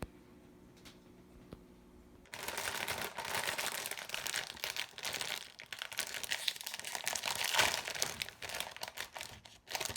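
Popcorn bag crinkling and rustling as it is torn open and handled, a dense crackle that starts suddenly about two seconds in after a faint hum.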